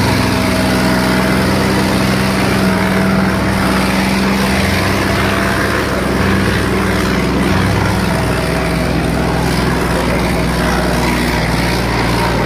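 John Deere 5210 tractor's diesel engine running hard and steady under heavy load, pulling a disc harrow through the soil.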